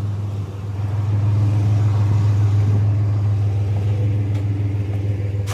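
Pickup truck engine running with a steady low hum, and a sharp click near the end.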